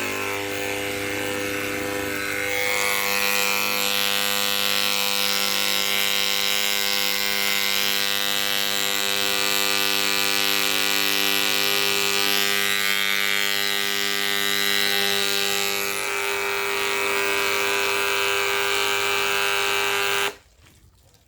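Repaired 'Malysh' electromagnetic vibration pump switched on in a bucket of water, running with a steady electric buzz and a hiss over it. The pump is working again, though the owner thinks its pressure is lower after the repair. The tone shifts about three seconds in, and the buzz stops suddenly near the end.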